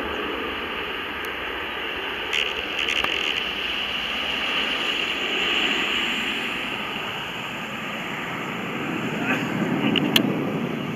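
Boeing 787 jet engines running at taxi power as the airliner turns to line up on the runway: a steady rushing noise that swells slightly twice. A few short sharp clicks, the loudest about ten seconds in.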